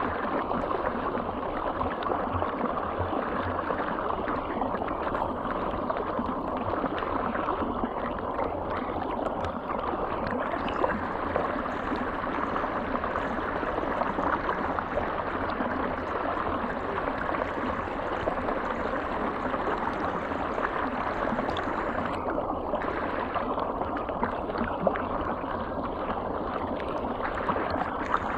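River water flowing, a steady, continuous rush.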